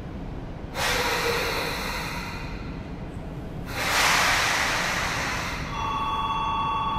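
Two bursts of compressed-air hiss from a Sotetsu 8000 series electric train standing at the platform, each lasting a couple of seconds; the second is the louder. Near the end a steady two-tone electronic signal starts and holds.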